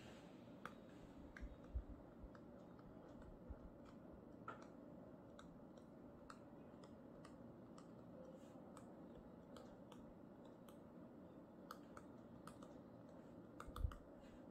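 Near silence with faint, irregular clicks of a stylus tip tapping on a touchscreen while handwriting, and a slightly louder knock just before the end.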